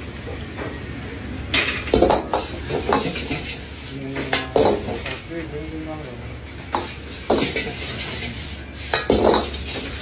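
A metal ladle clanking and scraping against a wok as egg fried rice is stirred and tossed, in repeated sharp strikes that come in clusters, over the steady rushing of the wok range's gas burner.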